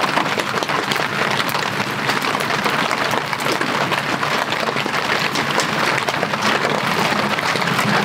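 Heavy rain falling steadily on tent fabric: a dense, even patter of countless drops.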